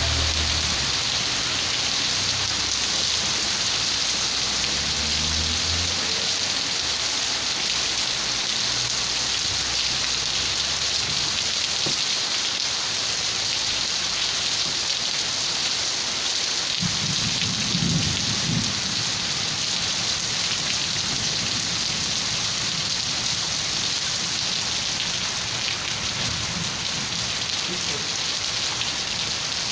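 Steady rain, an even hiss throughout. Low rumbles of thunder come in the first few seconds and again a little past the middle, the strongest about two thirds of the way in.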